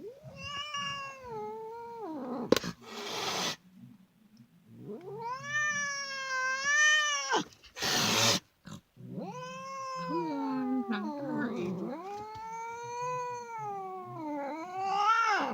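Angry domestic cat caterwauling in three long, wavering yowls, the last drawn out for about six seconds, with a sharp hiss after each of the first two.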